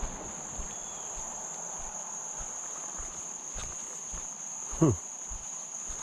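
A steady, high-pitched insect chorus, with soft, regular footsteps on a dirt path underneath. About five seconds in, a brief louder sound drops quickly in pitch.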